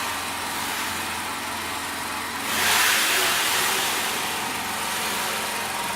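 Gantry carriages of a homemade CO2 laser machine rolling along linear guide rails, giving a hissing rolling noise over a steady background hum. The noise swells louder about two and a half seconds in and eases off again. The gantry is running freely without binding.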